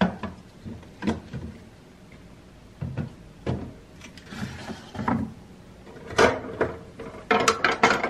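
Groceries being put away in a refrigerator: a string of light knocks and clunks as containers and bottles are set down on the shelves and door bins, with a short rustle a little after halfway and a quick run of clicks near the end.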